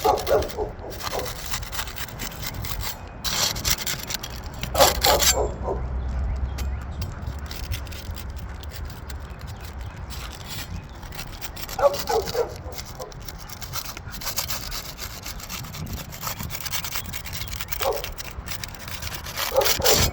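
Hand tools scraping and rubbing against asphalt roof shingles as a putty knife and pry bar work under a damaged shingle to free it for replacement. Short squeals stand out about five times, near the start, about five seconds in, about twelve seconds in, about eighteen seconds in and near the end.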